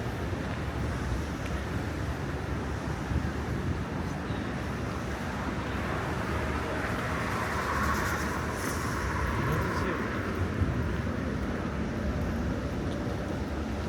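Steady city traffic rumble, with a vehicle passing in the middle that swells and fades over a few seconds.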